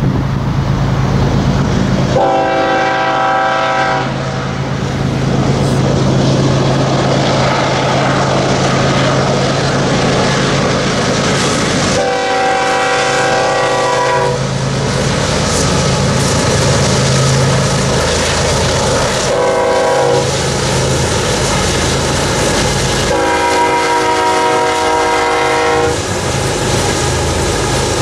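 Freight train diesel locomotive horn sounding four blasts, long, long, short, long, the standard grade-crossing pattern. Under the horn runs the steady low drone of the BNSF lead locomotives' diesel engines as the train passes close by.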